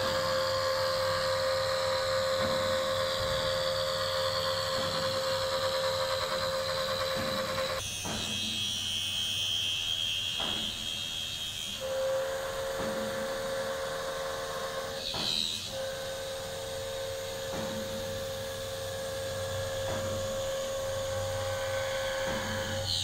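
Spindle of a five-axis CNC machining centre's HS 655 head running with a steady whine, with cutting noise, while the cutter trims a carbon fibre part. About eight seconds in the whine drops out for some four seconds, replaced by a higher steady tone, then returns.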